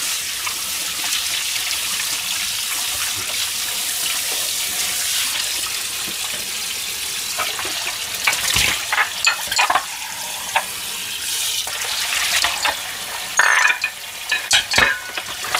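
Kitchen tap running into a stainless-steel sink while dishes are rinsed. From about eight seconds in, plates, bowls and plastic containers clink and knock as they are stacked in a metal basin.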